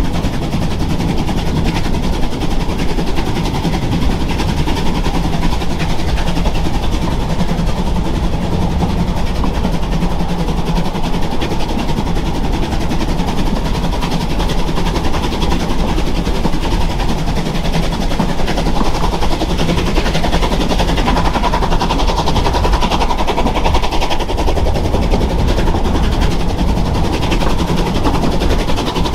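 A narrow-gauge train running steadily, heard from aboard a carriage: a continuous rattle of wheels on rails and carriage, with a dense, fast clatter over a low hum.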